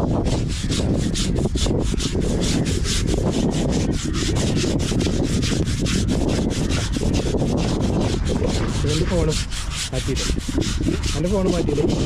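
An elephant's hide being scrubbed during its bath: a steady run of rapid, rough rubbing strokes.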